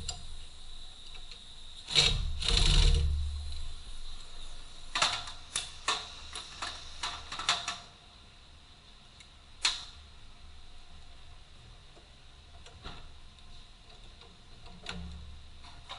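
Irregular clicks and knocks of tools and metal parts being handled, with a louder stretch of handling noise about two seconds in and a quick run of clicks a few seconds later.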